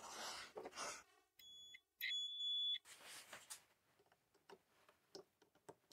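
Digital multimeter's continuity beeper sounding twice, a short beep and then a longer one, as its leads touch the angle grinder switch terminals: the switch is closing the circuit and working properly. Light handling rustle and small clicks come before and after.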